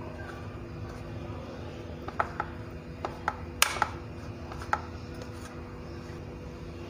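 Hands pressing a samosa into a dish of breadcrumbs to coat it: a handful of light clicks and taps against the dish, most of them in the middle of the stretch, the sharpest about three and a half seconds in, over a low steady hum.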